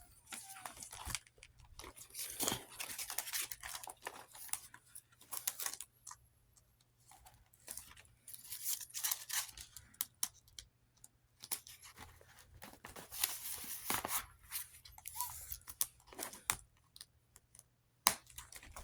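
Paper bills and envelopes being handled: irregular short rustles, crinkles and scrapes of paper with small clicks, in bursts separated by brief pauses.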